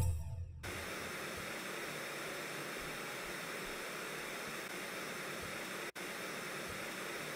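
Steady static hiss from a glitch-style outro sound effect, with a deep boom dying away in the first half-second and a brief cut-out about six seconds in.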